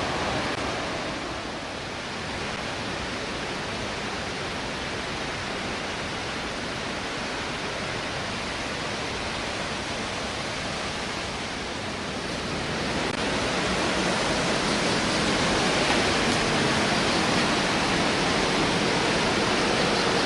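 Steady rushing of a waterfall, a dense even hiss of falling water that grows louder about two-thirds of the way through.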